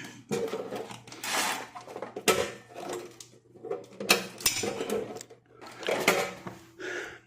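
Hard objects being handled and moved about: irregular clattering, scraping and knocks.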